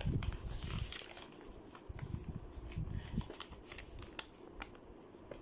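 Faint rustling and crinkling of a folded paper slip as it is handled and unfolded by hand, with light scattered clicks.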